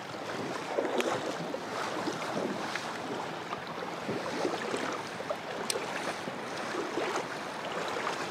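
River water rushing steadily, with a few short, sharp ticks over it.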